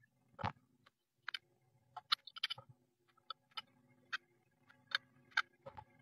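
About a dozen irregular sharp taps and scratches from a Eurasian blue tit moving about inside a wooden nest box, its claws and beak on the wood and nesting material, over a faint low hum.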